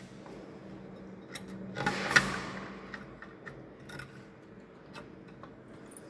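Light clicks and taps of hand tools and a spirit level being handled against a concrete wall, with one louder scraping rustle ending in a sharp click about two seconds in, over a low steady hum.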